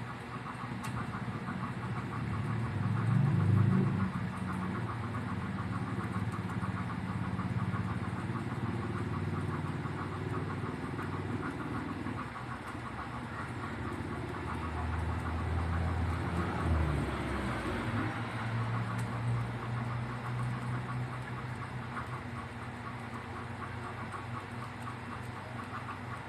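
Rapid, continuous typing on a computer keyboard, a quick steady patter of key clicks. Under it runs a low engine-like rumble that swells about three seconds in and again around sixteen seconds.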